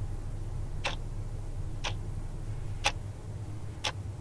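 A clock ticking steadily, about one tick a second, over a low steady hum.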